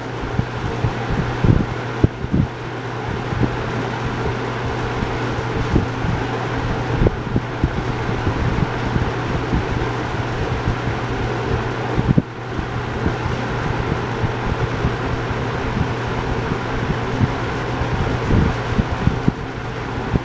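Toastmaster model 4425 box fan running, its older-style motor giving a steady hum under the rush of air. Many light rattling clicks run through it from the loose plastic front grill, whose screws need tightening.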